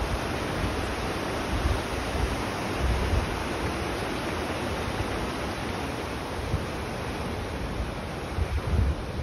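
The Narmada river in flood, muddy water rushing steadily over and past rocks, with a few low bumps on the microphone.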